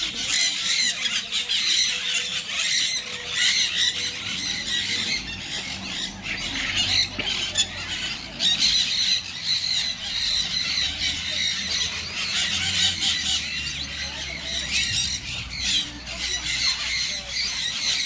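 A crowd of caged aviary birds calling at once: a constant overlapping mass of short, high squawks and chirps.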